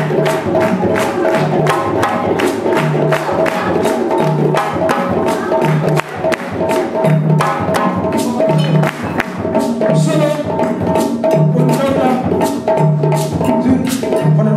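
West African drum ensemble playing: djembes struck with fast hand strokes over a recurring low bass-drum beat, with steady pitched notes ringing behind the drums.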